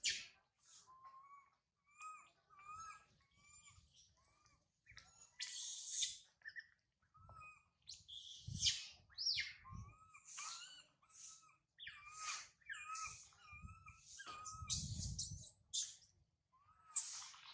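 Baby macaque crying: a string of short, shrill squeals about once a second, with fainter short chirps in between. A brief low rumble comes near the end.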